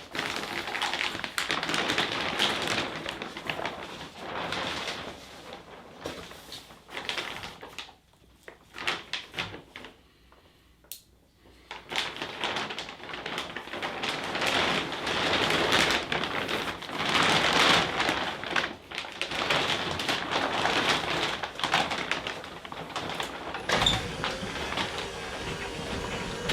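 Plastic tarp sheeting being handled and pulled down, crinkling and rustling with small clicks and taps, broken by a pause of a few seconds about a third of the way in.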